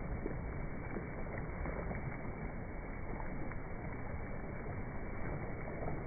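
Slowed-down beach ambience: an even, muffled rumble of wind and surf, lowered in pitch and dulled by the phone's slow-motion playback.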